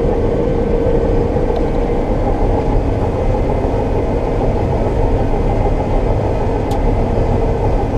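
Combine harvester running steadily while it cuts and threshes soybeans, heard from inside the cab as an even, unbroken mechanical noise.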